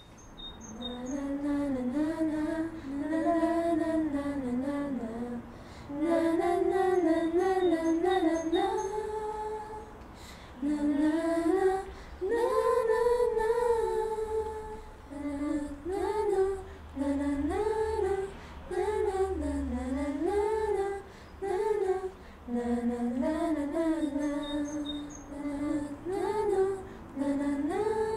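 A woman singing a melody unaccompanied, in short phrases separated by brief pauses.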